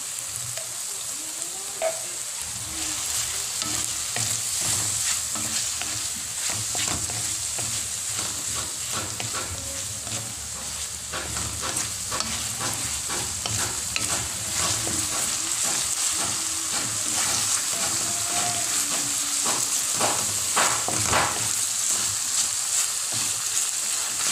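Chicken, tomatoes and onion sizzling in oil in a wok while a wooden spatula stirs them, scraping and knocking against the pan again and again.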